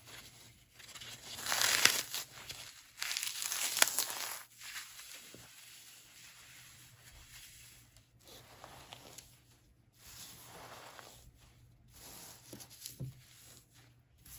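Floral foam being crushed and crumbled by hand: two loud crunching, tearing bursts in the first few seconds as a chunk breaks apart, then softer crackling as the crumbs are worked between the fingers.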